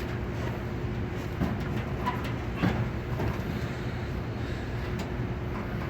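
Exhaust fan motor running with a steady hum and a thin steady tone, and a few short knocks.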